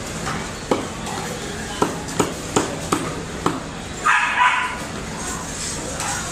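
A heavy knife chopping skipjack tuna flesh into chunks on a wooden block: six sharp knocks over about three seconds. Then a short, loud call about four seconds in.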